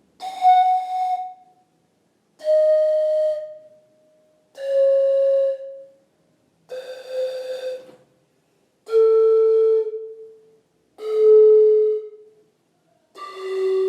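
Handmade ceramic antara (panpipe) blown one tube at a time: seven breathy notes, each about a second long and about two seconds apart, stepping down the scale from high to low.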